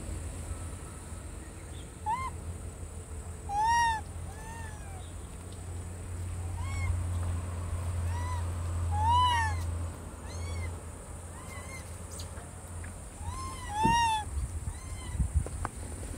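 Macaques giving short, arched coo calls, one after another, about eight in all, some in quick pairs. A steady high insect drone runs underneath.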